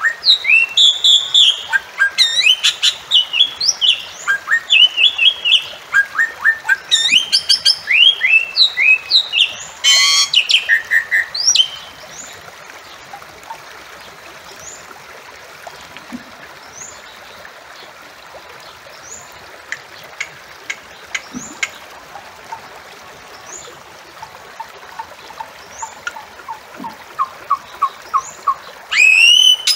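Bali myna (Bali starling) calling: a quick run of sharp chirps and slurred whistles, with a harsh buzzy call about ten seconds in. After about twelve seconds the calls thin out to faint scattered chirps and short notes, and loud calling starts again just before the end.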